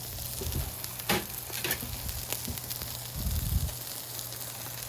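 Beef patties and buttered bread sizzling on a Blackstone flat-top griddle, a steady frying hiss, with a few light clicks and a short dull knock about three seconds in.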